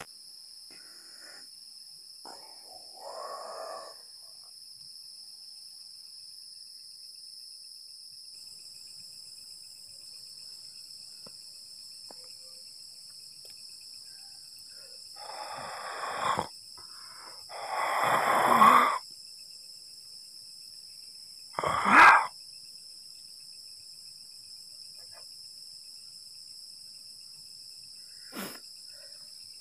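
Crickets and other night insects chirring steadily, broken by a few sudden unexplained noises: a short one about three seconds in, a louder cluster past the middle, a sharp loud one about two-thirds of the way through, and a faint click near the end.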